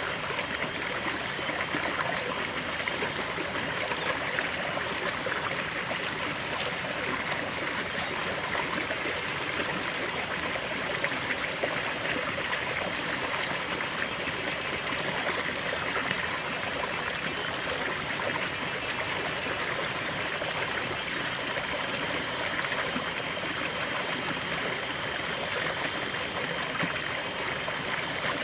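River water flowing steadily over stones, a continuous rushing and trickling babble with no change in level.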